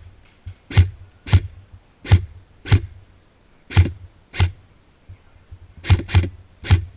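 Footsteps crunching on dry ground litter, about ten steps at an uneven walking pace, each with a low thump.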